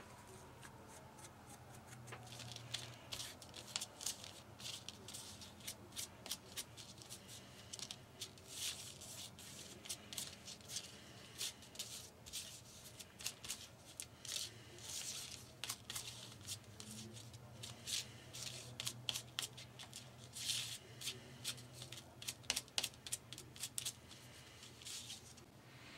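Light, irregular scratching and tapping of a small paintbrush working acrylic paint onto stamped-leather earring pieces, mixed with the pieces being shifted on the paper work surface, several quick strokes a second.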